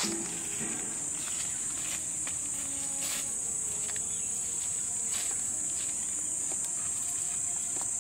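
Steady, high-pitched drone of an insect chorus, with a few brief rustles over it.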